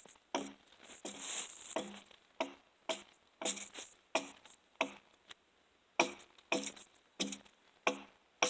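An axe striking a log over and over, about two blows a second, each with a short ring, as bark is chopped off the side the saw chain will enter. Clearing the bark keeps the sand and dirt caught in it from dulling the milling chain.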